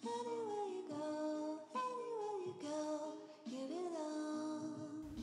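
Soft background music led by a sung vocal melody, its notes gliding downward in short phrases of about a second each.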